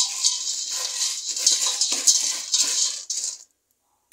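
Dry pasta toasting in hot oil in a metal pot while a spatula stirs it: a steady sizzle with repeated scraping, rattling strokes as the pieces are turned. It cuts off abruptly near the end.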